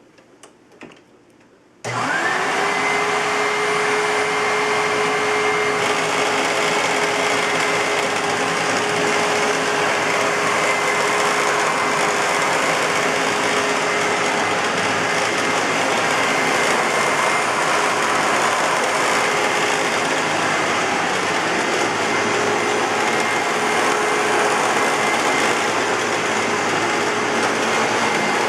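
A few light clicks, then about two seconds in a Hoover WindTunnel self-propelled upright vacuum switches on. Its motor whine rises quickly to a steady high pitch, and the machine runs steadily with a loud rush of air.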